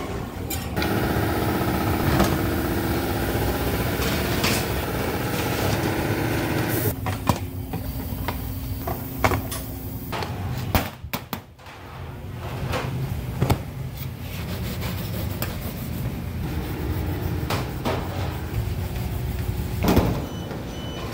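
Bakery work-room noise: a steady machine hum with now and then a sharp knock or clatter, about six in all.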